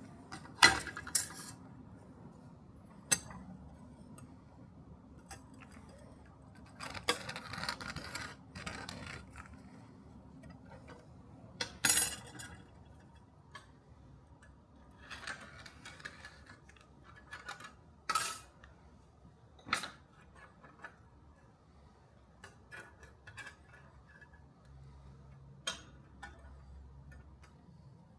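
Metal pieces being handled: scattered sharp clinks and knocks of metal on metal, with a few short stretches of scraping, separated by quiet pauses.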